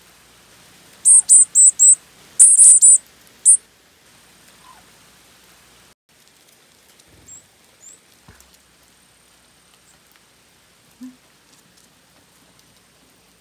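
Varied tits calling: runs of short, very high-pitched notes, four in quick succession, then another four, then a single note, all within the first few seconds.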